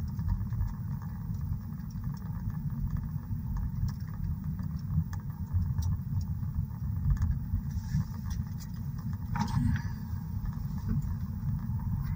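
Steady low rumble of a car's engine and road noise heard inside the cabin while driving, with a brief sharper sound about three-quarters of the way through.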